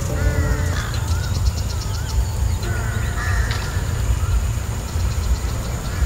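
Crows cawing a couple of times, mixed with other birds' short whistled calls, over a steady low rumble.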